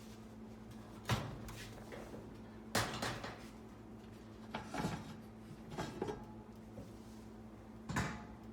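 Several separate clunks and knocks of an oven door and racks being handled as cast iron skillets are set in to bake, over a low steady hum.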